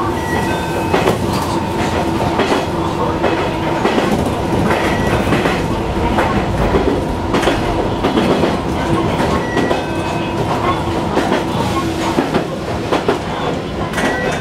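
815 series electric train running on the track, heard from the driver's cab: wheels clacking over rail joints at uneven intervals over steady running noise. A steady whining tone under it fades out near the end.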